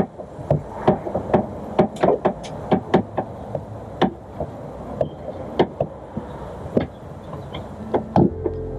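Spare-tire winch being cranked down with the jack handle: a run of irregular metallic clicks and clunks, two or three a second, as the chain lowers the spare tire.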